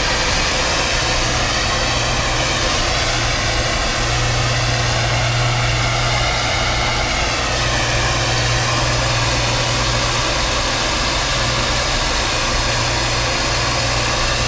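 Soldering torch burning with a steady hiss at a light flame while a leak in the copper refrigerant line is soldered, with a constant low hum under it.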